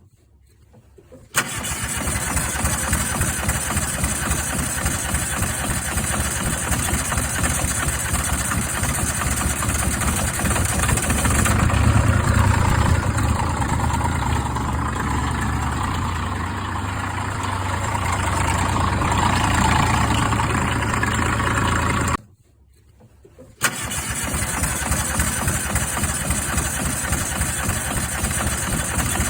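Yanmar diesel engine in a skid steer, starting abruptly about a second in and running steadily. It grows louder and deeper for several seconds in the middle, cuts out suddenly for about a second and a half near the end, then runs again.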